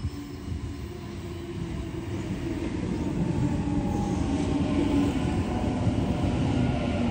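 Sydney Trains Waratah double-deck electric train pulling into the platform and drawing alongside, slowing to stop. It grows louder over the first few seconds, then holds a steady rumble with a whine from its motors.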